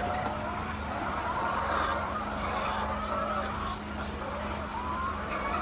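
A large flock of hens calling all at once in many overlapping, wavering voices, over a steady low hum.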